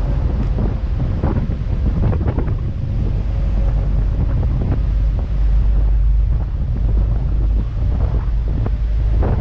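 Strong wind buffeting the microphone on a moving ferry, a heavy steady rumble, over the rush of the sea against the hull and a faint steady hum from the boat's engine.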